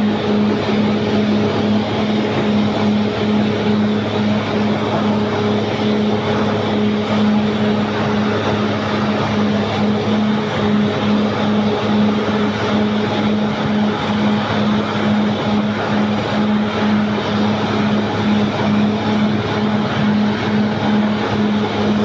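Caterpillar D6R XL crawler bulldozer travelling on its tracks, its diesel engine running at a steady, even drone with a low hum that pulses regularly.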